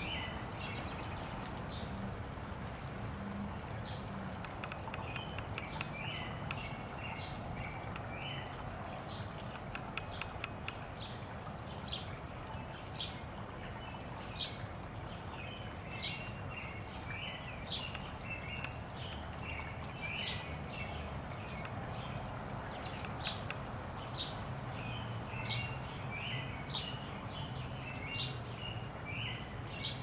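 A flock of small songbirds chirping, with many short, sharp chirps coming in quick clusters throughout, over a steady low background rumble.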